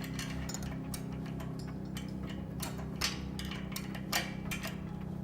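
Ratcheting 7/16 wrench tightening a 1/4-inch cap screw on a lift's retainer clip: irregular short runs of ratchet clicks, with a louder click about three seconds in and another a second later, over a steady low hum.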